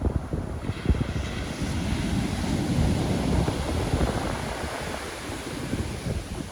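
Pacific Ocean surf: a wave breaks and washes in about a second in, its hiss swelling and then fading toward the end, over low wind buffeting on the microphone.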